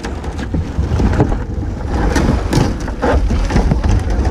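Wind rumbling on a kayak-mounted camera's microphone, with a string of knocks and scrapes against the kayak's cockpit as a paddler lifts their legs out of it.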